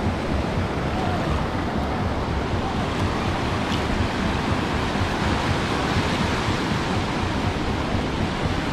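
Small waves washing up and breaking on a sandy shore in a steady wash, with wind buffeting the microphone.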